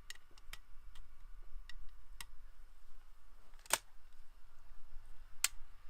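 About five short, faint clicks spread out over a low, steady rumble. The loudest comes a little under four seconds in.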